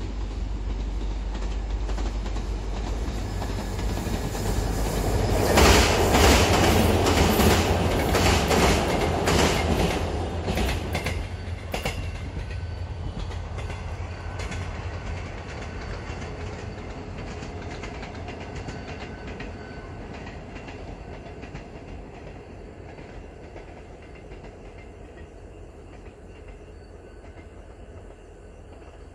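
Mugunghwa-ho passenger train passing by. Its rumble builds to a peak about six to ten seconds in, with a run of sharp wheel clicks over the rails. It then fades steadily as the train runs off into the distance.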